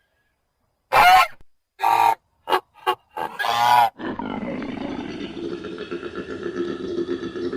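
Five loud animal calls, short and of uneven length, the last and longest ending about four seconds in. A continuous lower animal sound then follows.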